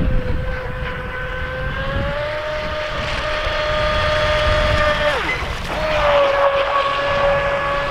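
WL Toys WL915 RC speedboat's brushless motor whining at speed, a steady high tone with overtones that rises a little as it runs. About five seconds in the pitch drops away and the whine stops briefly, then it returns slightly higher.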